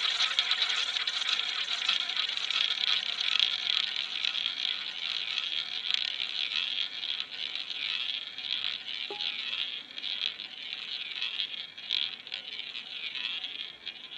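A roulette ball rolling round the track of a spinning casino roulette wheel, a steady whirring that slowly fades as the ball loses speed.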